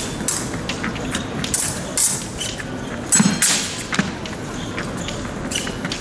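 Épée fencers' footwork on the piste, with low thumps and shuffling steps and scattered sharp clicks of blade contact, against the steady hum of a large competition hall.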